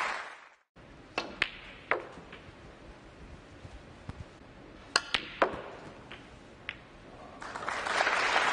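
Snooker balls clicking as the cue tip strikes the cue ball and the balls knock together: a quick cluster of three sharp clicks about a second in, and another cluster about five seconds in. Applause dies away at the start and swells again near the end.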